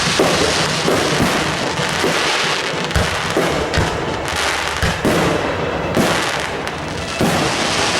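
Fireworks going off: about ten sharp bangs scattered over several seconds, some in quick pairs, over a continuous hiss of crackling.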